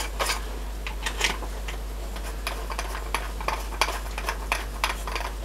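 Scattered light metallic clicks and taps, a few a second at irregular spacing, from a threaded stud being clamped into a drill chuck.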